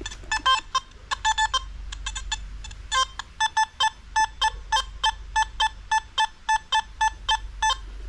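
Metal detector giving short, high beeps each time its search coil passes over a dug hole, signalling metal still in the ground there. The beeps come in irregular groups at first, then settle into a steady run of about three a second from about three seconds in, with the odd lower-pitched tone.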